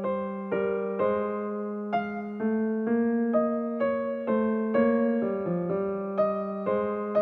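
Background music: a gentle electric piano melody, notes struck about twice a second over a held bass note.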